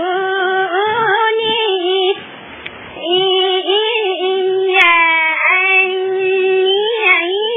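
A song with a high-pitched singing voice, holding long notes that bend in pitch. The voice drops out briefly a little after two seconds in.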